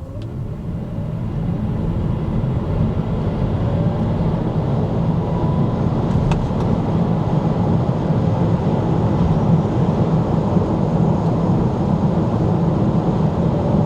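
Maxus Euniq 5 electric car accelerating hard from a standstill: low road and tyre rumble rising over the first two or three seconds, then holding steady.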